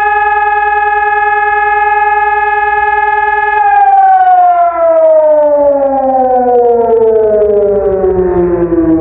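ECI DT 1200 siren sounding the fire-alarm signal (Feueralarm): a loud steady tone that, about three and a half seconds in, starts falling in pitch in a long downward glide as the blast winds down.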